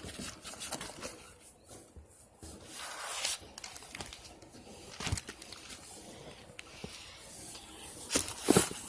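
Sheets of scrapbook paper rustling and sliding as they are pulled out and handled. There is a short knock about five seconds in, and louder rustling near the end.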